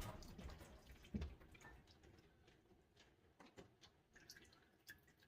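Near silence: the last faint trickle of carbonated cider into a cocktail glass dies away over the first second or two, with one soft knock about a second in.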